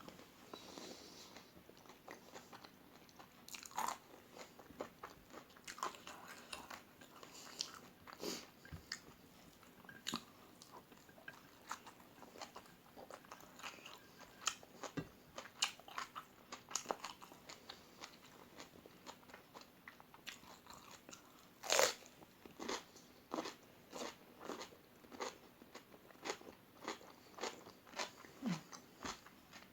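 Mouth chewing and crunching crispy fried omelette: irregular crisp crunches, a few a second, with one louder crunch about two-thirds of the way through.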